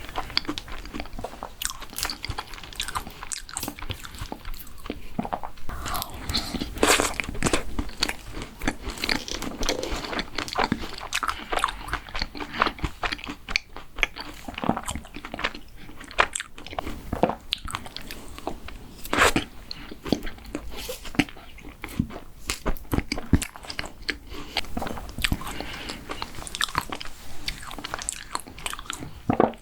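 Close-miked eating sounds: a person biting, crunching and chewing mint-chocolate desserts, with many irregular crisp crunches.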